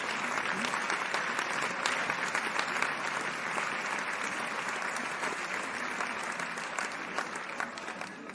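Audience applause: many people clapping in a dense, steady patter that starts to fade near the end.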